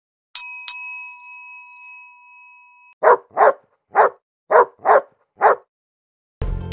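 A bell-like chime struck twice in quick succession and left ringing, then a dog barking six times in short, sharp barks. Music starts just at the end.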